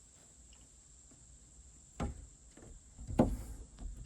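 Handling noises of screen netting being lined up on a camper window frame: quiet at first, then a single sharp knock about halfway through, followed by a few taps and rustles near the end.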